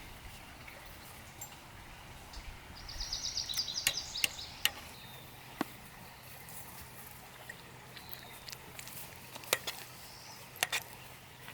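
Quiet outdoor ambience with a faint steady low hum. About three seconds in comes a quick, high-pitched trill of rapid pulses lasting about a second and a half. Sharp clicks fall around the four-second mark and again near the end.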